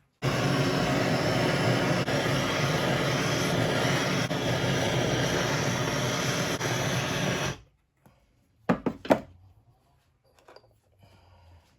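Loud, steady rushing hiss of a jet of gas or air that cuts off suddenly after about seven seconds, followed about a second later by a few sharp metallic knocks.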